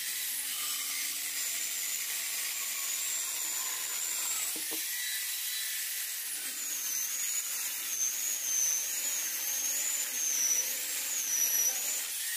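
Electric angle grinder driving an 11.5-inch chainsaw bar and chain, running with a high whine as the chain cuts through a log. From about six seconds in, the pitch wavers up and down as the load on the motor changes.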